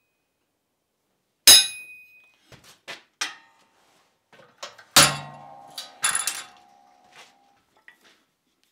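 A few separate hammer blows on steel, each a sharp metallic strike with a short ring, with lighter clinks of tools between. The first blow comes about a second and a half in and the loudest about five seconds in.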